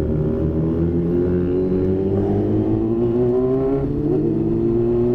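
Yamaha R6's inline-four engine pulling under way, its pitch rising slowly and steadily as the motorcycle accelerates, with a brief waver in pitch about four seconds in.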